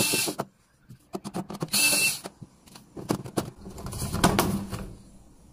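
Back panel of a washing machine being taken off: a run of clicks and knocks with short scraping rasps, and a longer rattling stretch near the middle.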